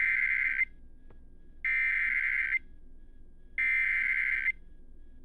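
Emergency Alert System SAME header: three bursts of buzzy digital data tones near 2 kHz, each about a second long and a second apart. This coded header opens a severe thunderstorm warning.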